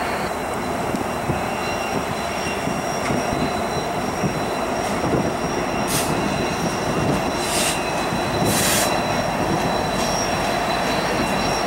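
Diesel freight locomotives and autorack cars rolling past, a steady rumble of engines and wheels on rail with thin, steady high-pitched wheel squeal. Three short hissing bursts come about halfway through.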